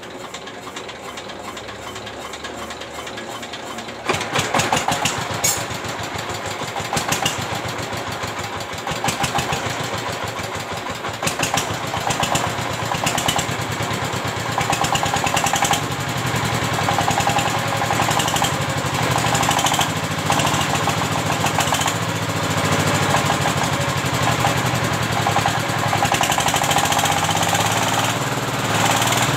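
Single-cylinder S-1100 16 HP diesel engine test-started after service: about four seconds of quieter fast ticking, then it fires and runs with a dense, regular beat. It is running after its weak, partly blocked injector nozzle was replaced, with the nozzle being adjusted for an even sound.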